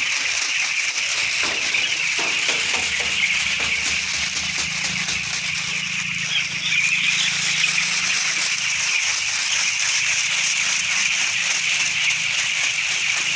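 A crowd of 11-day-old poultry chicks peeping all at once in a dense, continuous high chorus, with a low steady hum underneath.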